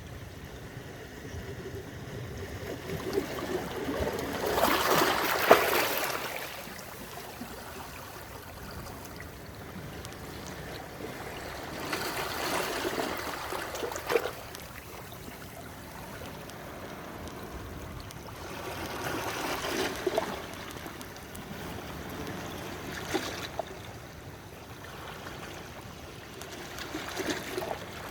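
Sea waves breaking and washing up the beach: a steady rush of surf that swells into a louder wash every several seconds, the biggest one about five seconds in.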